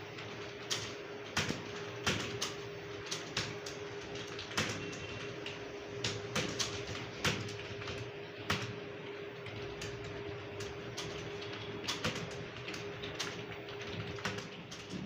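Computer keyboard being typed on during a Hindi typing test: irregular, fast key clicks, several a second, over a steady faint hum.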